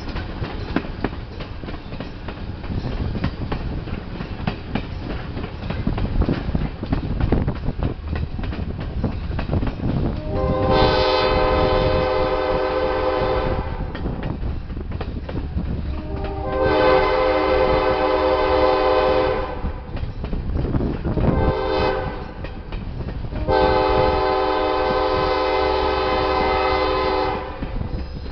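Train horn sounding the grade-crossing signal: two long blasts, a short one, then a final long one. Under it runs the steady rumble and clickety-clack of the passenger coach's wheels on the rails.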